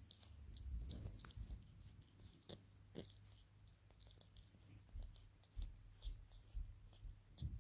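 Sphynx cat making faint, irregular wet mouth clicks close to the microphone, over a low rustle of fabric or handling.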